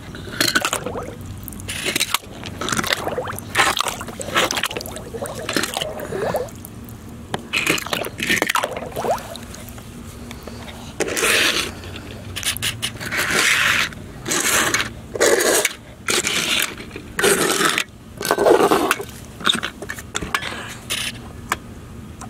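Die-cast toy cars being pushed and slid by hand across a board: a run of short scraping sounds with pauses between them.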